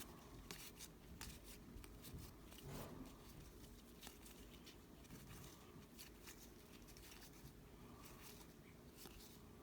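Near silence with faint, scattered soft ticks and rustles of trading cards being handled and slid one behind another.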